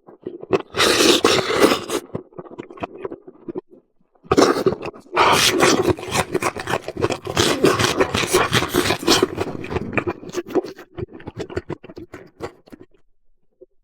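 Close-miked eating sounds: wet chewing and biting with dense crackling mouth noises, in two long bouts with a short pause between, trailing off near the end.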